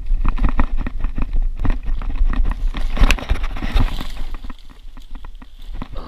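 Old Schwinn mountain bike rattling and clattering over a rough dirt trail, with a low rumble of wind buffeting the microphone. Leaves and branches brush past about three to four seconds in, and the rattling quietens over the last couple of seconds.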